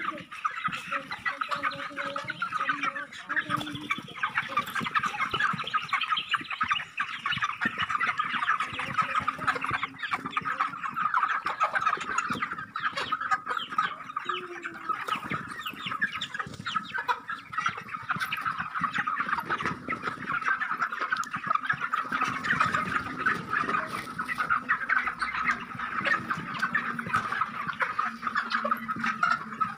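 A large flock of broiler chickens calling continuously: a dense chatter of many overlapping short clucks.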